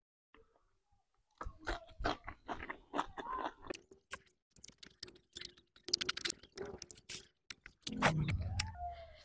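Close-miked mouth sounds of eating by hand: crisp crunches of a raw green bean and wet chewing of a mouthful of rice and masala chicken, coming as irregular crunches and mouth clicks after a quiet first second and a half, loudest about eight seconds in.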